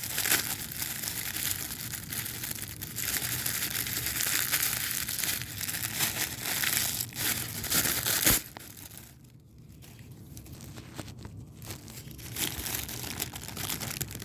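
Plastic packaging crinkling and rustling as it is handled and pulled open, dense and continuous for about eight seconds, then a sharp click and quieter, scattered rustles.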